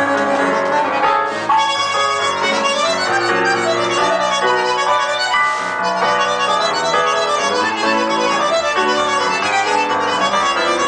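A bandoneon and a keyboard playing a piece together, the bandoneon's reedy held notes over the keyboard's accompaniment, with no break.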